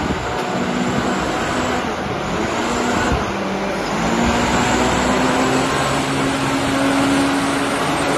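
Backhoe loader's diesel engine running under way, a steady mechanical drone with a dense noise wash, its pitch stepping up a little about four seconds in as the engine speeds up.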